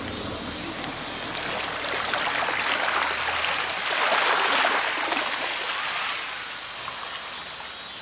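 Small waves washing in over a pebble beach and running back through the stones, swelling to their loudest about halfway through and then easing off.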